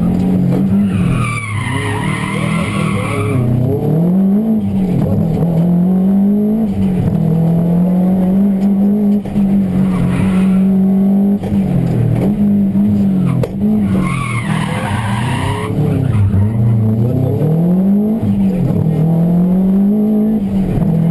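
Rally car engine heard from inside the cockpit, revving hard and repeatedly rising and falling in pitch with gear changes and lifts between corners. Tyres squeal through corners about a second in and again about 14 seconds in.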